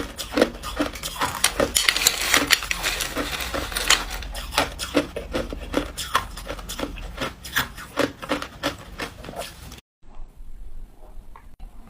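A person chewing ice, a rapid, irregular run of crisp crunches and cracks. The crunching cuts off abruptly near the end, leaving a few quieter crackles.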